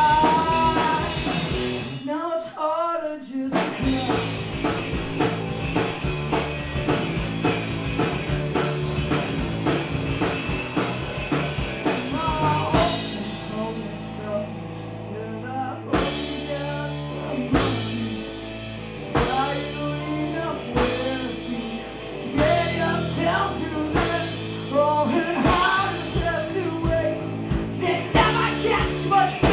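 Live punk rock band playing: electric guitar, bass guitar and drum kit with lead vocals. The band breaks off for about two seconds near the start and comes back in, and thins out for a few seconds past the middle before the full band returns.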